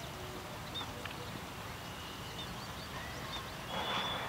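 Open-air ambience: scattered short bird chirps and whistles over a low, steady rumble, with one brief louder, noisier sound near the end.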